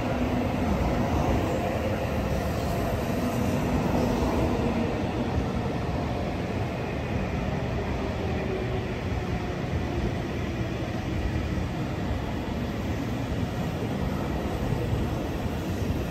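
N700A Shinkansen train running slowly along the platform: a steady rumble of wheels and running gear with a faint motor whine that slowly falls in pitch.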